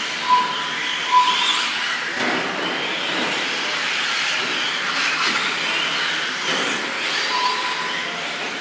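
RC 4x4 short course trucks running around the track: a steady hiss of tyres and motors with faint rising and falling whines. Short high beeps sound three times in the first second and a half and once more near the end.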